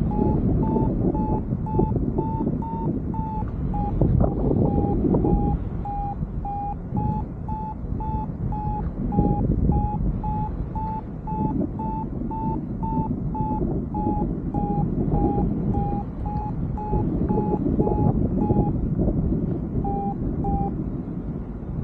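Paraglider's variometer beeping, about two short beeps a second with a pitch that drifts slightly up and down, the climb tone that signals the glider is rising in lift; the beeps stop about a second before the end. Steady wind rushing over the microphone underneath.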